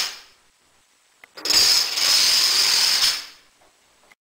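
Rows of plastic dominoes toppling in a chain on a wooden table: a dense clatter that starts suddenly about a second and a half in, runs for nearly two seconds and dies away. The tail of an earlier chain fades out at the start.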